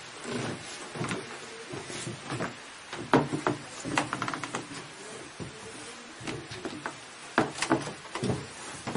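Wooden floor loom clacking and knocking as it is worked: irregular sharp wooden knocks from the frame, heddles and beater, the loudest about three seconds in and again near the end.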